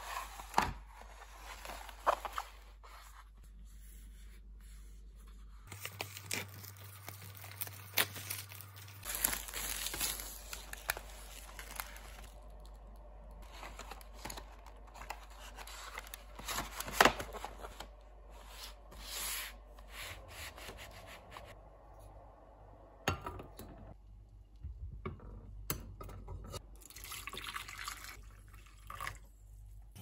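Hands handling a boxed set of acrylic paint tubes, sliding the box from its cardboard sleeve: scattered light taps, clicks and rustles of cardboard and the plastic tray.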